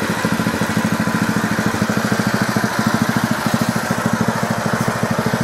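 Powerhorse gas pressure washer's 212cc single-cylinder overhead-valve engine, a Honda clone, running steadily with a fast, even beat.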